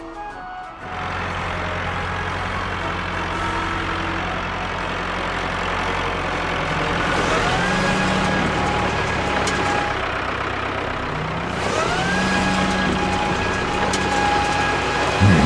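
Animated-cartoon truck engine sound effect running steadily. Its pitch rises twice, about halfway through and again near the end, as if the truck is speeding up.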